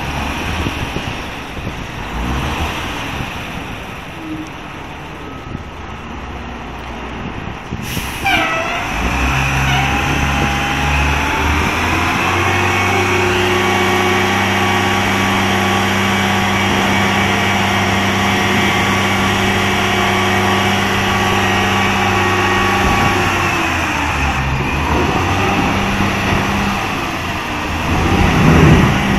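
Roll-off truck's diesel engine running under load to drive its hydraulic hoist as a container is loaded, with a sharp metal clank about eight seconds in. The engine speeds up and holds a steady pitch, drops back about two-thirds of the way through, then surges louder near the end.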